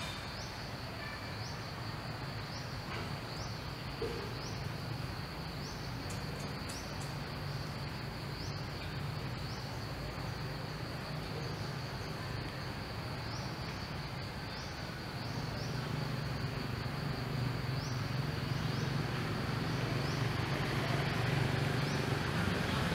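Insects droning steadily at one high pitch, with short rising chirps repeating about once a second, over a low rumble that grows louder in the last several seconds.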